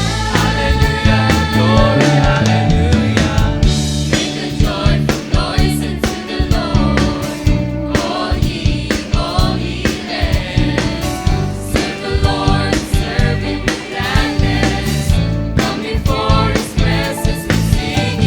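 Youth choir singing a gospel praise song over an instrumental backing with a steady beat.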